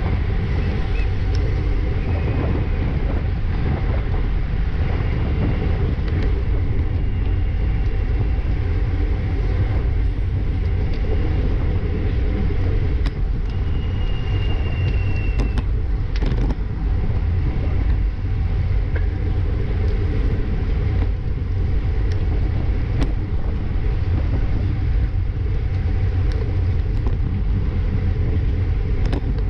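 Steady wind rush and rumble on a bike-mounted action camera's microphone at about 30 mph, mixed with the hum of road-bike tyres in a tight racing bunch.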